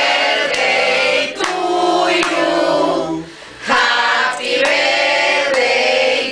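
A group of men and women singing a birthday song together in unison, with a brief pause about halfway through.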